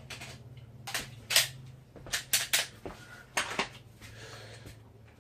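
Sharp clicks and knocks of a dry-fire pistol draw with a compact Glock G23: gun and holster clacking, and the dry snap of the unloaded trigger. There are about eight in all, the loudest about a second and a half in.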